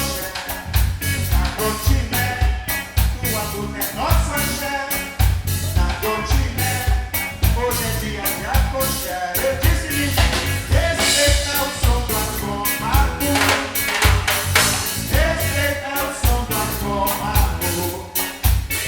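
A live band playing an upbeat song, with drum kit and percussion keeping a dense, steady beat under pitched instruments.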